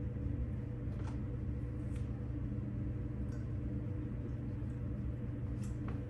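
Steady low hum of room tone, with a few faint clicks about one, two and six seconds in.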